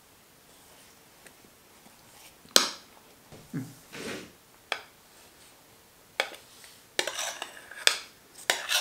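A spoon knocking and scraping against a bowl as thick whipped cream is emptied into a cake tin. One sharp knock comes about two and a half seconds in, then scattered knocks and scrapes that grow busier near the end.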